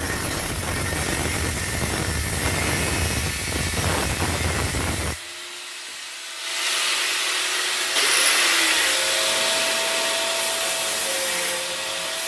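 Power tool abrading rusty exhaust-silencer steel, cleaning the metal back for welding. The sound changes abruptly about five seconds in, from a heavier grinding with a low rumble to a lighter, higher-pitched scouring hiss.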